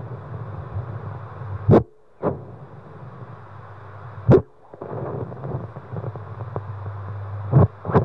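Speaker output of a Terumo UTD-5A handheld ultrasonic fetal Doppler: a steady rumbling hiss broken by four loud scraping knocks, the sound cutting out briefly after two of them.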